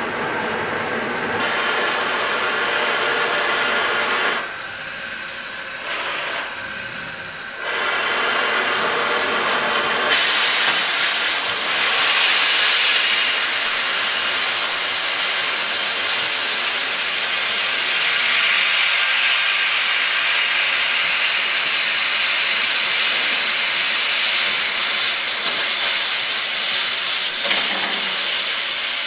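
Mechanized oxy-fuel cutting torch running with a steady rushing hiss. About ten seconds in, the hiss jumps suddenly louder and brighter and holds steady.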